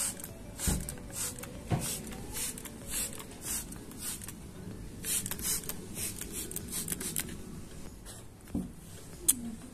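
Trigger spray bottle squirting cleaner onto window glass: a quick hiss about twice a second that stops about seven seconds in. A single sharp click comes near the end.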